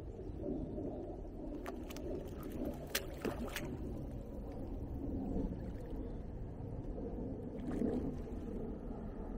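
Water sloshing and lapping close by, uneven and shifting, with a few sharp clicks around the middle and again near the end.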